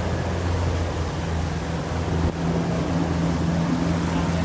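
A sailboat's motor running steadily with a low hum, pushing against the river current through choppy water, over a constant rush of wind and water.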